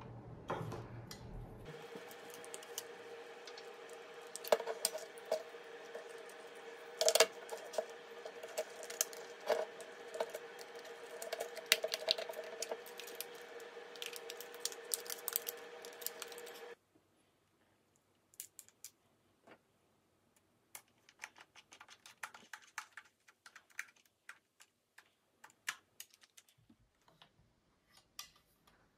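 Scattered clicks and knocks of hard plastic toy-truck parts and a screwdriver being handled on a wooden table. A steady hum runs under them for the first half and cuts off abruptly about seventeen seconds in, leaving only the clicks.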